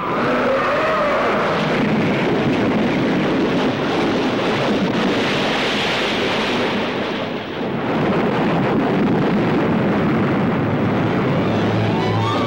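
Monster-movie sound effects of churning water and crashing destruction: a dense, loud rushing and rumbling. A wavering tone sits over it in the first couple of seconds, and the noise dips briefly about seven and a half seconds in.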